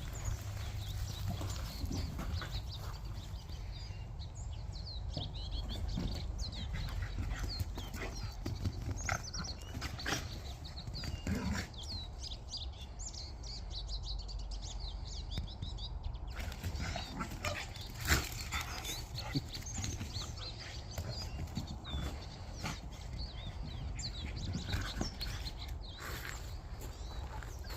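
Dogs moving about and playing, with scattered small scuffs and clicks, and one sharp knock about eighteen seconds in.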